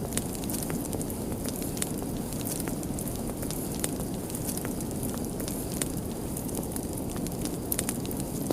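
Wood fire crackling: irregular sharp pops and snaps, several a second, over a steady low rush of burning.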